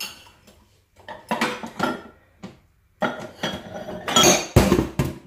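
Kitchen dishes and cutlery clattering and clinking as they are handled, in irregular bursts with short pauses, the loudest clatter near the end.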